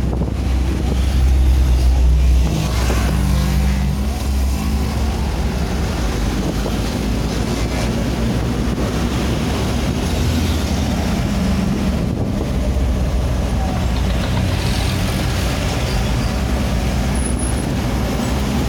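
A large engine running with a steady low drone, louder for a second or two near the start.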